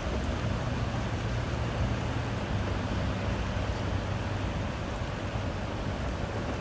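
Road traffic: a steady low engine hum under a rushing haze, with wind buffeting the microphone.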